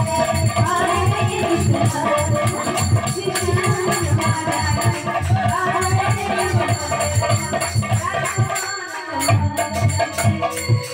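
Devotional kirtan music played live: a hand drum beating a steady rhythm under jingling hand percussion and a keyboard melody. The drum drops out for about a second near the end, then comes back in.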